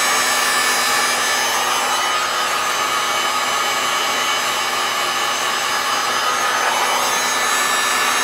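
Heat gun running steadily: a constant rush of blown air with a steady motor and fan whine. It is preheating an amplifier's aluminium thermal plate so the solder under new power MOSFETs will melt.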